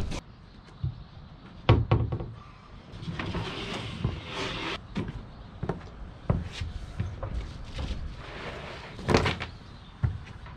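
Thumps and scuffs on a boat deck as a deck mat is thrown down and shifted into place, with rubber boots stepping on the deck. There are several sharp knocks, the loudest about nine seconds in, and scraping and rustling between them.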